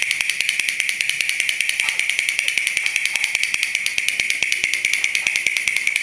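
A toy duck's mechanism running: a steady high-pitched whirring buzz with rapid, even clicking.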